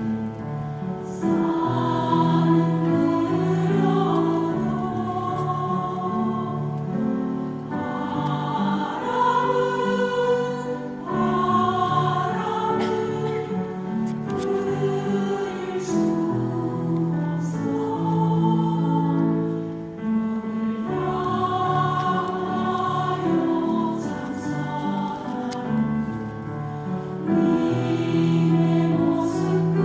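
A choir singing a Korean Buddhist hymn in phrases of held chords.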